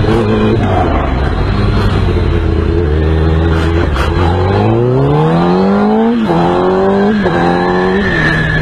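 Vehicle engine accelerating hard, its pitch climbing and dropping sharply twice at gear changes, about six and seven seconds in, then held at high revs.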